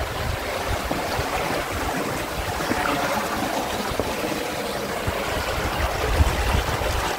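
Steady rush of a flooded river running over rock slabs, with uneven low buffeting of wind on the microphone.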